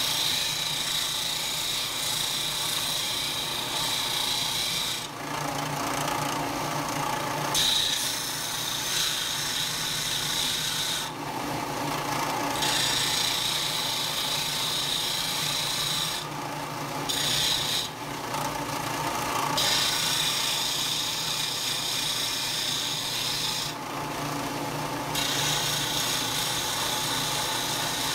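Bench disc sander running, its abrasive disc grinding down a die-cast metal model truck cab, over a steady motor hum. The grinding eases off briefly about five times and comes back as the metal is pressed to the disc again.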